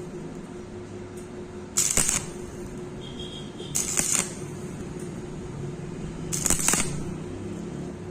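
Stick (arc) welding done in short stitches: three half-second bursts of crackling arc about two seconds apart, the arc struck and broken again for each stitch of a vertical weld, over a steady hum.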